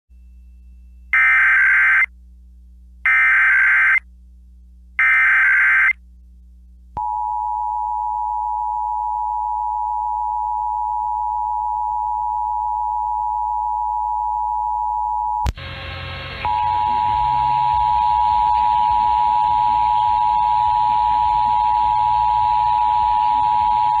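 Emergency Alert System Required Monthly Test: three short bursts of the SAME digital header, then the steady two-tone EAS attention signal. About two-thirds of the way through, the tone breaks off with a click and a second of static, then comes back over a steady hiss.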